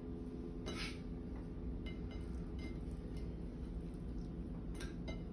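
A few light clinks and taps of a small glass oil bottle and a ceramic plate, with one louder knock about a second in, over a steady low hum, while raw tuna steaks are oiled by hand.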